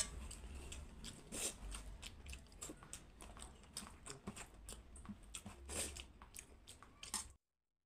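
Close-miked eating sounds: chewing with many irregular small clicks and crunches, mixed with fingers working rice and curry together on a steel plate. The sound stops abruptly near the end.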